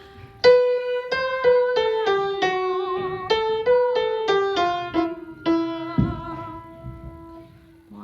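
Keyboard playing a short melody of single notes that works its way downward, then one long note held and fading away.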